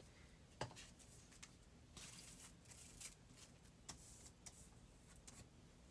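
Faint rustling and sliding of paper being handled on a tabletop, with one sharp tap just after half a second in.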